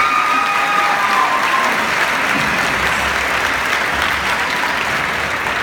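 Large audience applauding, with a few cheers and whoops dying away in the first second or two; the clapping eases slightly near the end.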